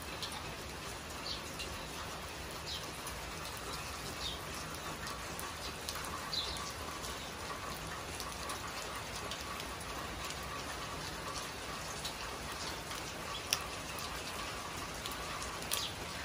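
Steady rain falling, an even hiss of drops, with a few sharper drip taps now and then, the sharpest about thirteen seconds in.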